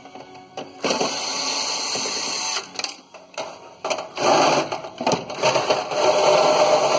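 Cordless drill/driver backing screws out of a furnace's sheet-metal cabinet, its motor whining in two runs: one from about a second in to near the halfway mark, and a second, louder one from about four seconds in.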